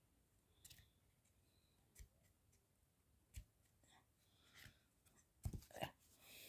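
Faint handling noise of a cardboard board book: scattered soft taps and rubs as its stiff pages are turned and the book is moved, with a few louder knocks about five and a half seconds in.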